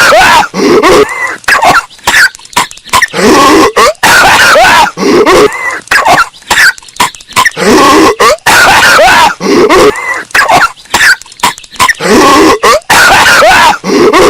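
Cartoon character Patrick Star coughing hard in a short clip looped over and over, the same rough coughing fit coming back every three seconds or so. It is very loud and distorted, clipped by heavy bass boosting.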